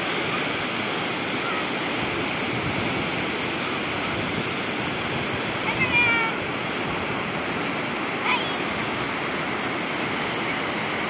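Pacific Ocean surf washing steadily onto the beach. Short high-pitched cries break through it twice, about six seconds in and again about two seconds later.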